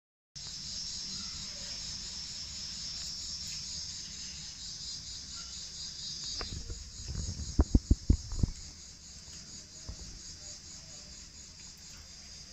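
Insects chirping in a steady, high-pitched, finely pulsing chorus that thins out after about six seconds. Around seven to eight and a half seconds in, a quick run of several loud knocks breaks in.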